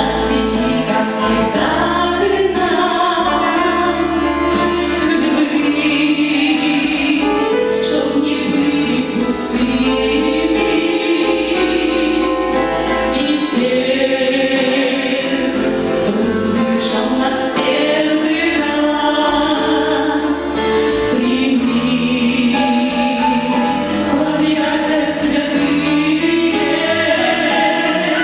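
A women's vocal trio singing a Russian Christian song, with instrumental accompaniment carrying low sustained notes that change every few seconds.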